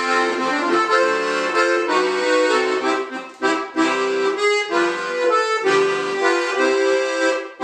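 Accordion music playing chords and a melody, with a stretch of short, choppy chords about midway, ending on a final chord near the end.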